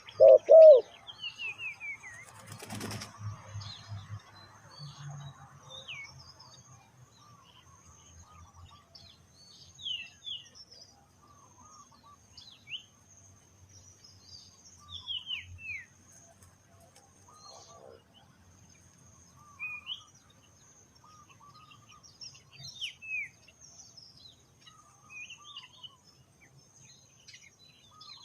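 A spotted dove's cooing breaks off under a second in, then a brief flutter of wings about three seconds in. After that, small birds chirp with short falling notes, scattered and fairly quiet, over a faint steady high-pitched hum.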